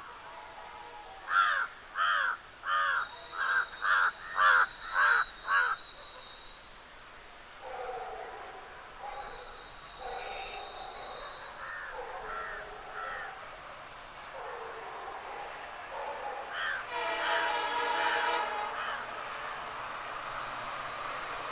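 A crow cawing, a quick run of about nine loud caws in the first few seconds, then softer caws through the middle. Near the end the EMD WDP4 diesel locomotive sounds its horn for about two seconds, and the train's rumble grows as it approaches.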